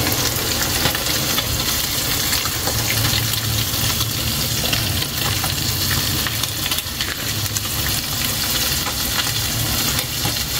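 Hot pot of laing simmering with a steady sizzling hiss as thick first-press coconut milk is poured in from a plastic bag over the taro leaves.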